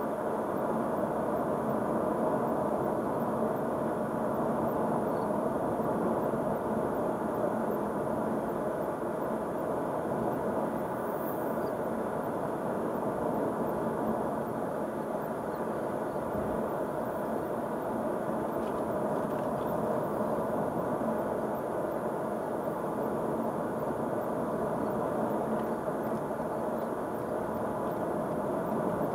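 Steady tyre and road noise of a car driving along a rural county road, heard from inside the cabin. The sound is an even rushing with no change across the stretch.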